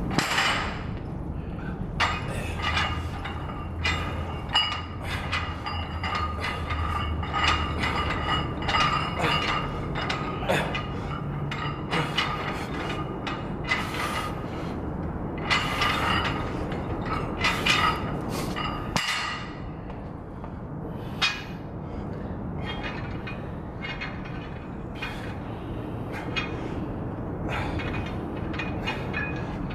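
Fixed-weight steel barbells clinking and knocking during a set of curls: the plates rattle on the bars with each rep, and bars are set down and picked up from the floor. The sharp metal clinks come irregularly throughout.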